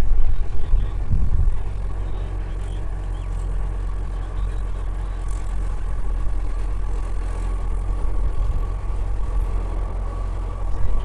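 Train running steadily: a low rumble with a thin, steady whine above it, after a louder passing sound that fades just as it begins.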